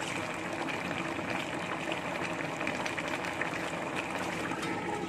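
Spiced yellow arsik broth with fish and long beans simmering in an uncovered wok: a steady bubbling with fine crackles.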